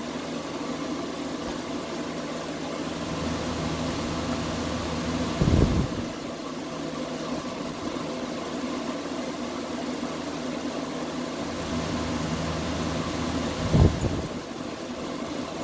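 Two short pulls on a Stihl 024 Wood Boss chainsaw's recoil starter, about eight seconds apart, each a brief whirr, over a steady background hum. The engine does not catch.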